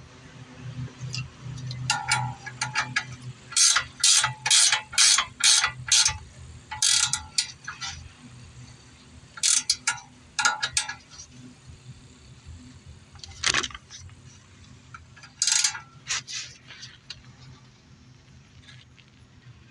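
Hand ratchet wrench being worked back and forth to run a bolt in, in spells of quick clicking strokes with pauses between.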